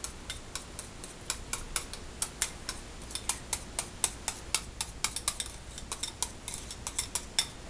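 A small wire balloon whisk beating crema thinned with milk in a ceramic bowl: quick, uneven clicks of the wires striking the bowl, several a second.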